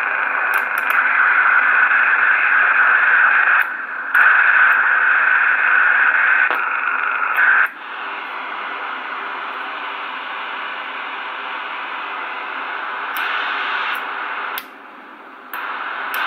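Cybernet WIPE 2000 CB radio's receiver hissing static through its speaker while the channel selector and mode controls are turned. The hiss changes level several times, dipping briefly about four seconds in, then falling quieter near eight seconds and rising again later. Light clicks come from the knobs.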